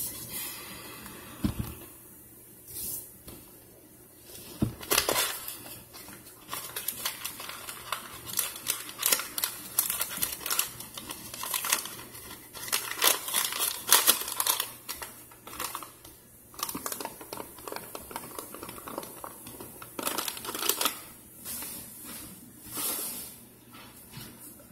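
Powdered starch being poured from a box into a cast iron skillet: irregular crackling and rustling of the powder and the cardboard box, densest through the middle, with a couple of dull thumps near the start.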